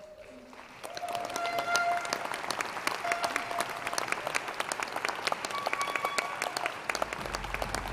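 Audience applauding, the clapping starting about a second in, with music playing over it.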